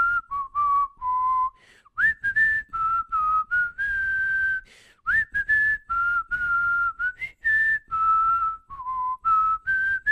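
A tune whistled by a person: a string of short notes and a few longer held ones, each a single clear pitch, gliding between notes.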